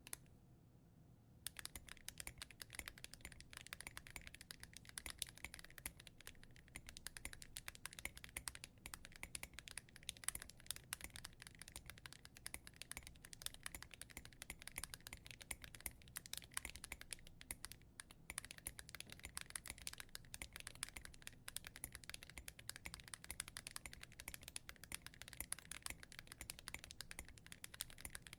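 Fast typing on a KBDfans Margo mechanical keyboard with full-metal copper keycaps, a dense rattle of key clicks likened to a machine gun, starting about a second and a half in with a few brief pauses.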